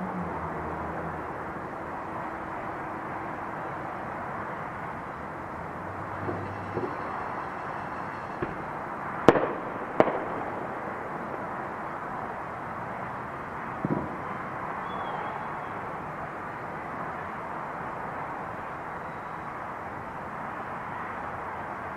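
Fireworks and firecrackers going off around the neighbourhood: scattered sharp bangs over a steady background din, the loudest two about nine seconds in, a second apart, and another near fourteen seconds.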